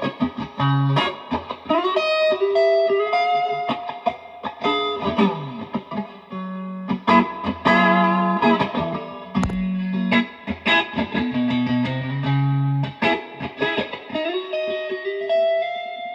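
Electric guitar played through a Fender Blues Junior tube combo amp: single-note lead phrases with several string bends and a few held notes.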